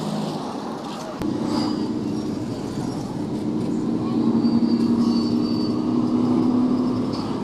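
Road vehicle running, heard from on board: a steady engine and road hum whose engine note steps up and gets louder about a second in.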